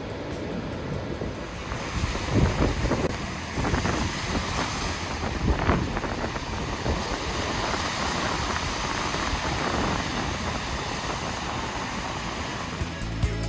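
Wind buffeting the microphone over a steady rush of waves, in uneven gusts.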